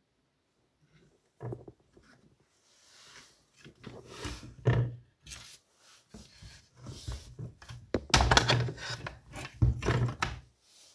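Irregular knocks, clicks and scrapes of plastic and metal chainsaw parts being handled as the carburettor and air-filter housing are lifted off a Partner 410 chainsaw on a workbench. They are busiest and loudest in the last few seconds.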